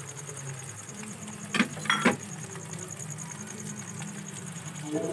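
Beaten egg and bean sprouts frying in oil in a pan, a steady low sizzle. About one and a half to two seconds in come a few short sharp clinks.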